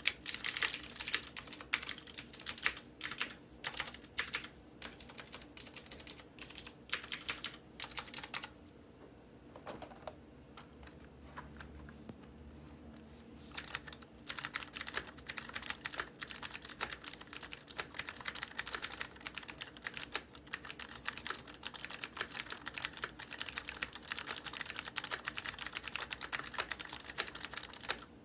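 Typing on a Cherry MX Board 3.0S (G80-3870) keyboard with clicky Cherry MX Blue switches, their springs lubricated and switch films fitted. Loud, sharp key clicks come in irregular runs, stop for about five seconds near the middle, then resume as faster, steadier and quieter typing.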